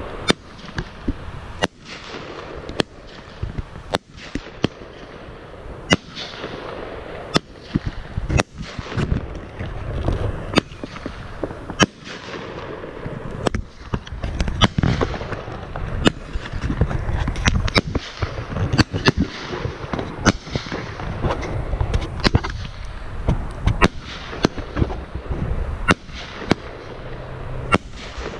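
Fireworks going off one after another: dozens of sharp bangs at uneven intervals, about one or two a second, over a continuous low rumble.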